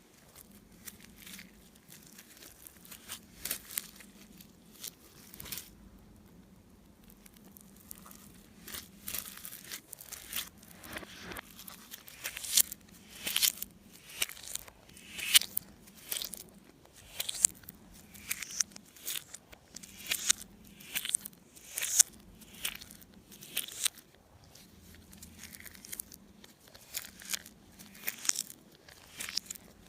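Slime being kneaded and stretched by hand, giving irregular sticky crackles and pops. They are sparse at first, come thick and fast through the middle, and thin out near the end.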